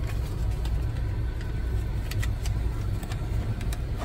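Steady low drone of an idling engine, with a few light clicks on top.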